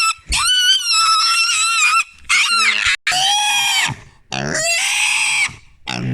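Piglet screaming in long, high-pitched squeals, about five in a row with short breaks for breath, as it is held down to have a wire nose ring removed. The screaming is protest and fright at being restrained rather than pain.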